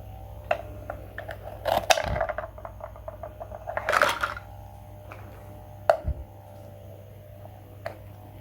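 Small hard objects clinking and tapping, like cutlery or small dishes being handled, with a dense clatter about two seconds in and a short scraping rush about four seconds in.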